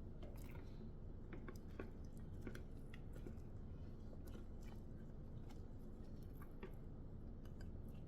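Thick soap batter squelching as it is squeezed from a silicone piping bag, with gloved hands working the bag: scattered small wet clicks and squishes over a steady low hum.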